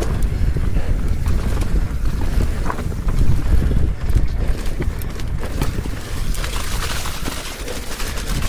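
Wind buffeting the action camera's microphone as a mountain bike descends at speed, a loud steady rumble, with short rattles and knocks from the bike over rough ground.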